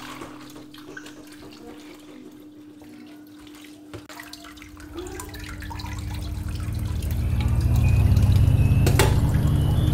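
Kitchen faucet water running into a stainless steel sink and over raw chicken being rinsed by hand. The water is soft at first and grows steadily louder through the second half, with a sharp click near the end.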